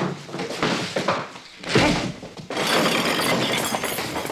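Film fight sound effects: heavy blows and crashes at a bar counter, the loudest hit a little under two seconds in, followed by glass breaking and clattering.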